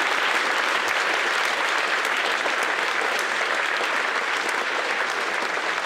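An audience applauding steadily, many hands clapping together in a hall.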